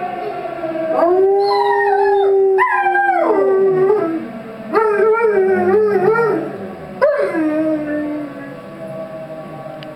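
A German wirehaired pointer and a yellow Labrador retriever howling along with a tornado siren played back from a video: several long howls, each sliding down in pitch at the end, one wavering, from about a second in until near the end. The siren's steady tone carries on underneath and slowly fades.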